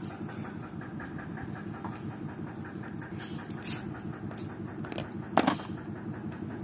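A steady, evenly pulsing background rumble, with brief rustling and a sharp knock about five seconds in as a smartphone is lifted out of its cardboard box.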